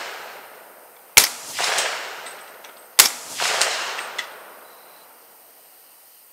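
Two rifle shots about two seconds apart, each a sharp crack followed by a rolling echo that dies away over a second or two.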